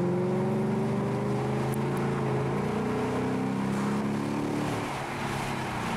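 Lexus IS F's V8 engine accelerating, heard from inside the cabin. The engine note rises, drops at a gear change about two and a half seconds in, rises again, then falls away near five seconds as the car eases off.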